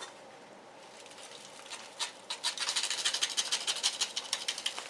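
A bag of dried bonito flakes being handled, with crinkly rustling and crackling that starts about two seconds in and keeps up as rapid little crackles.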